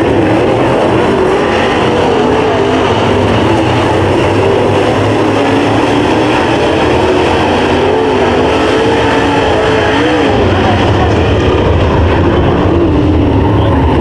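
A field of dirt late model race cars running laps with their V8 engines, a loud, constant blend of engine noise whose pitches rise and fall as the cars go through the corners.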